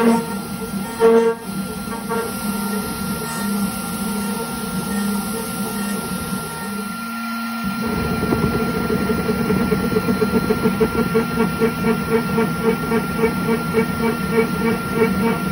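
Shopbot Desktop CNC machine milling aluminium: a steady high spindle whine over cutting chatter. About eight seconds in, the sound changes as a 1.5 mm tapered ball-nose end mill takes over, with a quick regular pulse of about three a second.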